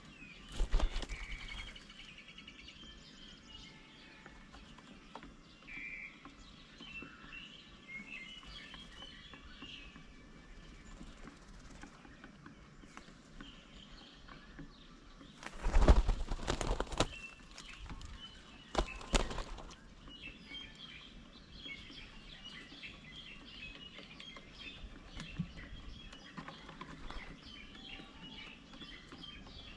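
Small birds chirping and calling at a bird table, with a few loud flurries of wingbeats as birds arrive or leave: one about a second in and two around the middle.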